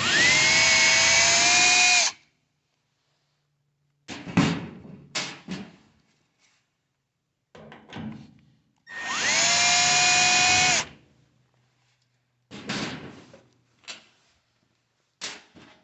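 Drill driving a 1/4-inch nut driver runs twice, about two seconds each, near the start and about nine seconds in, each time spinning up quickly to a steady whine as it backs out one of the two screws holding the washer's top panel. Short clicks and knocks of handling come between and after the two runs.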